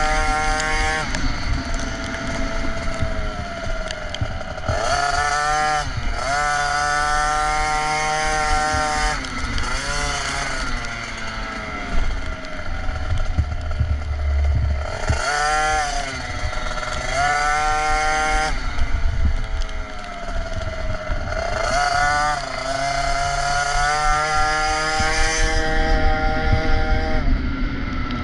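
KTM SX 50's small two-stroke single-cylinder engine heard from on board the bike, revving high and dropping off again and again as the throttle is worked around a motocross track. The revs fall away sharply several times, including near the start and near the end.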